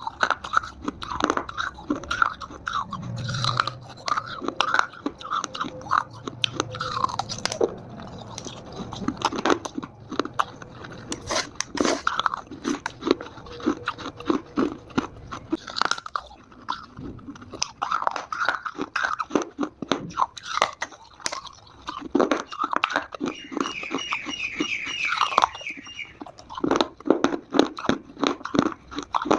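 Multani mitti (fuller's earth clay) being bitten and chewed close to the microphone, with dense, irregular crisp crunches throughout.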